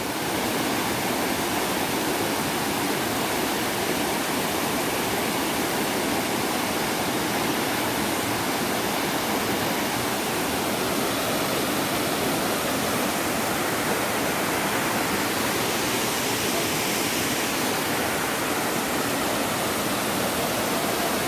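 Waterfall pouring, a steady, dense rush of falling water.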